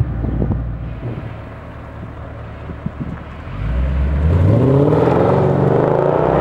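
Mercedes-Benz CLS 55 AMG's supercharged 5.4-litre V8 through a loud aftermarket MEC Design exhaust: the deep note drops back to a low idle, then a little over three and a half seconds in the revs climb and it stays loud as the car pulls away and accelerates.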